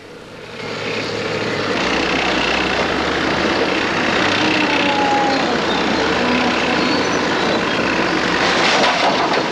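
Heavy earthmoving machinery at work: the engines of a loader and dump trucks give a steady, noisy rush with a low hum. It fades in over the first second or so.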